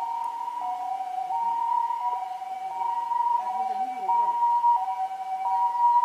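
Japanese ambulance siren on a second-generation Toyota HiMedic, sounding its two-tone hi-lo "pii-poo" call. Each tone lasts about 0.7 s, and the siren grows louder toward the end.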